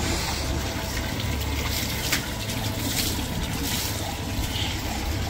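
Water running and splashing steadily as a wet dog is rinsed with water scooped from a bucket by a plastic mug, with a few faint knocks.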